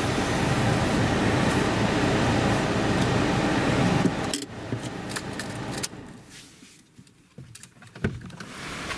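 Steady engine and road noise inside a moving Fiat Punto, which stops abruptly about four seconds in as the car is parked. Then a few light clicks and a jingle of keys in the quiet cabin, with a sharper click near the end.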